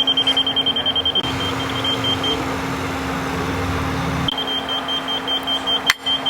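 A construction vehicle's engine running, with a fast-pulsing high electronic beep that drops out for a couple of seconds while a deeper engine rumble swells, then comes back. Two sharp knocks near the end.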